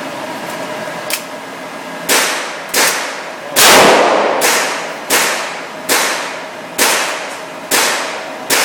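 A string of about nine gunshots in an indoor shooting range, roughly one a second, each followed by a long echoing tail; one about three and a half seconds in is the loudest.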